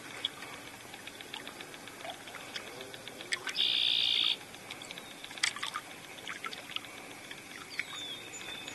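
Quiet ambience on the water: faint trickling and small scattered ticks. About three and a half seconds in, a high, steady sound lasting under a second is the loudest thing, and near the end comes a short, falling high whistle.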